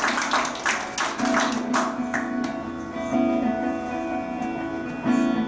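Live instrumental music: a quick run of sharp strokes for the first couple of seconds, then held, ringing notes in short phrases.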